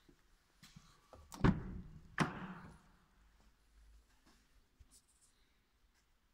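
Range Rover driver's door being unlatched and swung open: two clunks less than a second apart, the latch releasing and then the heavy door reaching its open stop.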